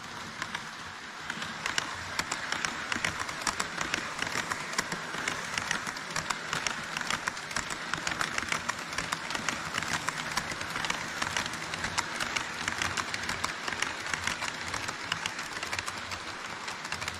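HO scale model trains running close past on sectional track, an E5 Shinkansen model and a tank-car freight train: a steady whirr of wheels and motors with a dense, rapid clicking of wheels over the rail joints, getting louder about a second in.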